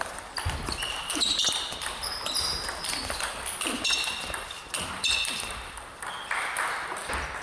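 Table tennis rally: the ball clicks sharply off the bats and the table in an irregular series of hits, mixed with short high squeaks of sports shoes on the hall floor.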